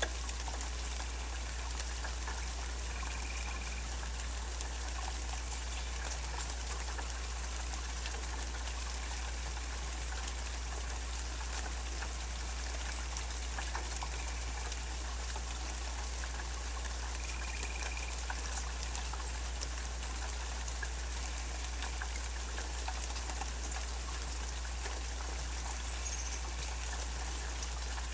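Steady rainfall with many small drops pattering. Twice, a short high call of about half a second rises above the rain.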